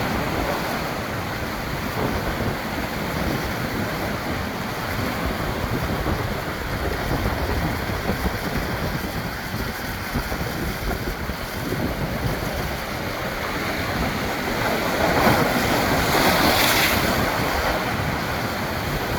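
Pacific Ocean surf washing onto the shore, with wind buffeting the microphone. About fifteen seconds in, a wave breaks more loudly.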